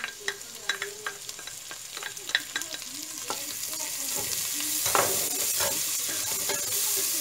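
Chopped onion scraped from a plate with a spatula into a pot of diced calabresa sausage frying in oil, with light taps at first; then the sizzling grows louder and steadier as the onion is stirred into the hot fat.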